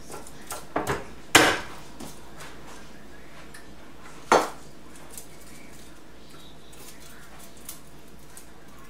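Chef's knife knocking on a wooden cutting board as it slices the tips off garlic cloves: a few sharp knocks in the first second and a half, and one more about four seconds in.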